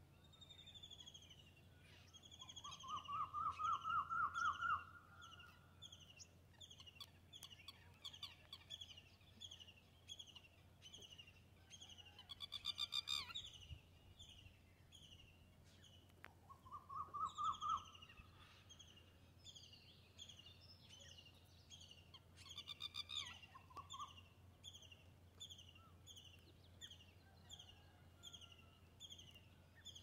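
Birds calling: a steady run of short, high, falling chirps about twice a second. A rapid trill of lower notes, rising slightly, comes a few seconds in and is the loudest part; a second trill comes past halfway, and brief louder bursts of calls come in between.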